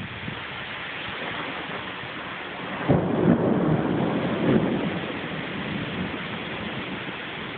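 Steady rain hissing, with a thunderclap about three seconds in that rumbles in a few swells for a couple of seconds and fades.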